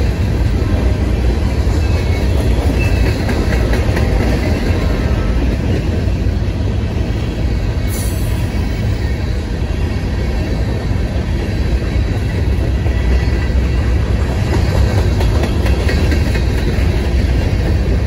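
Freight train of loaded covered grain hopper cars rolling past, a loud, steady rumble of wheels on rail.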